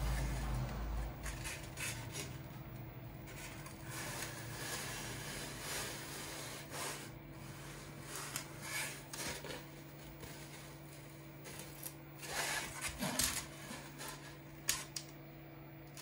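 Cut foam wing pieces rubbing and scraping against each other and the hands as they are handled, in irregular short rustles, with a short sharp tap near the end. A faint steady hum runs underneath.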